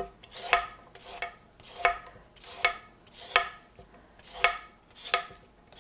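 Vegetable peeler scraping the brown bark and purple under-skin off a raw cassava root in eight short strokes, about one every 0.7 seconds.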